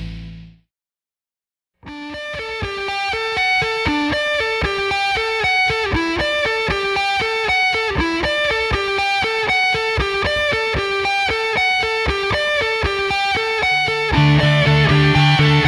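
Guitar music: a loud passage fades out, a second of silence, then a fast, repeating picked guitar figure starts. A heavier, louder section with strong low bass notes comes in near the end.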